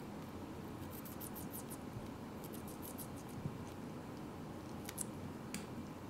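Barred parakeet's beak nibbling at a strip of bird bread, making quick runs of tiny crisp clicks about a second in and again near the middle, then two sharper single clicks near the end.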